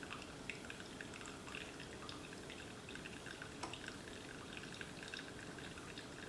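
Single-serve coffee maker dispensing coffee into a cup of ice: a faint steady trickle of liquid with many small irregular drips and ticks.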